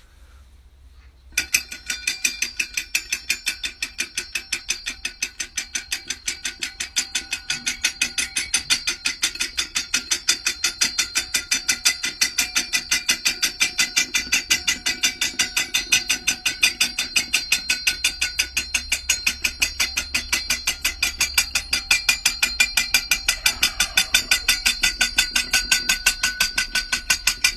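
Common flameback woodpecker (pelatuk bawang) calling with a long, unbroken string of sharp notes, about five a second, starting about a second in.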